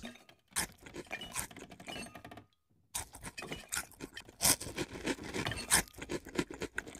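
Cartoon sound effects from an animated film's soundtrack: a quick jumble of clicks, scrapes and rustles as a panda scrambles about a kitchen after food. There is a brief pause about two and a half seconds in.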